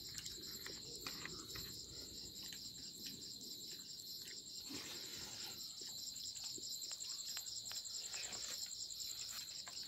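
Crickets chirping in a steady, evenly pulsing chorus, with a few faint clicks.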